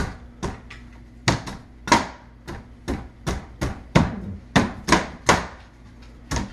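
Meat cleaver chopping into a coconut's fibrous husk: a run of sharp, uneven chops, about two or three a second.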